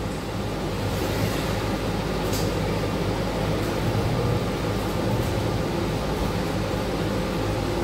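Steady hum of a city bus's engine and air handling, heard from inside the passenger cabin, with a faint tick about two and a half seconds in.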